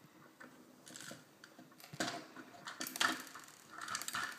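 Small plastic Lego pieces clicking and clattering as a toy truck is handled and its load tipped out, with several separate rattles.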